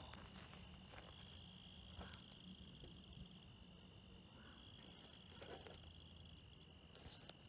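Faint, steady high trill of field insects, with a few soft taps now and then.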